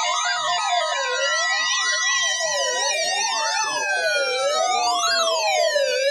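Several electronic siren tones layered over one another. Each sweeps up and down in pitch, the lowest about once a second, faster ones above it, with long tones slowly sliding down underneath.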